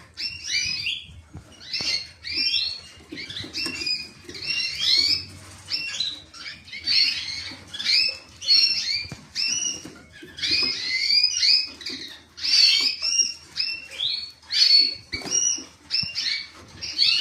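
Domestic canary singing: quick runs of short, high chirping and warbling notes in phrases, with brief pauses between them.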